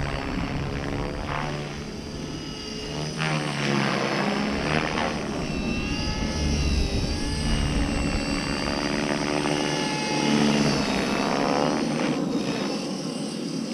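Align T-Rex 550E DFC electric RC helicopter in flight, its main rotor with 550 mm blades and its motor whirring continuously. The pitch keeps rising and falling as it manoeuvres and passes back and forth.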